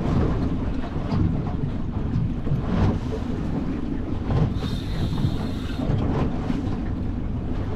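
Wind rumbling on the microphone over sea noise on a small boat, with scattered knocks and clicks and a brief higher hiss a little past halfway.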